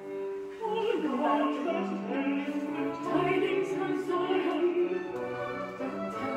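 Music: operatic singing over an orchestra, sustained notes with vibrato.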